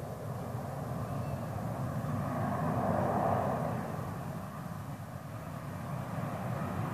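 Distant jet aircraft engine noise, a steady rumbling hiss that swells about three seconds in, eases off, then builds again near the end.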